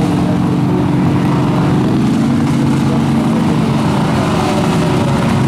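Off-road truck engines running hard under load in deep mud. The engine note climbs a little about two seconds in and then holds steady.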